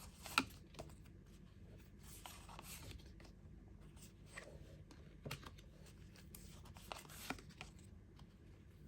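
Faint rustling and soft taps of tarot cards being handled and laid down, with a sharper click about half a second in and a few lighter ones later.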